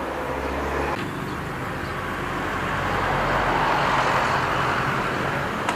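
Steady road-traffic noise, with a vehicle passing that swells to its loudest about three to four seconds in and then fades.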